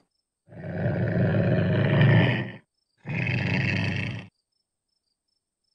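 Lynx calling: two long rough cries, the first about two seconds long and the second just over a second.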